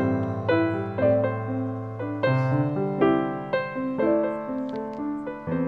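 Background piano music: a slow melody of struck notes, a new note about every half second, over held low bass notes.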